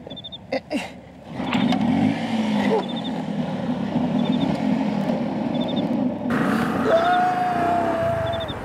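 Kick-start scooter engine started: a few knocks from the kick-start, then the engine catches about a second and a half in and runs steadily as the scooter moves off. A steady higher tone joins near the end.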